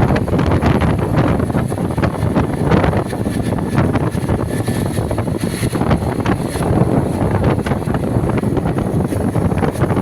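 Wind buffeting the microphone over a low, steady rumble of road vehicles.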